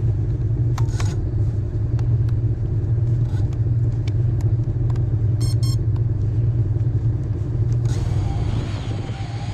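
Snowmobile engines idling with a steady low hum, with occasional sharp clicks.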